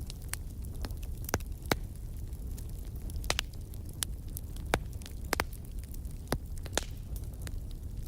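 Wood fire burning in a fireplace: a steady low rumble of flames with irregular crackles and sharp pops, a few of them louder than the rest.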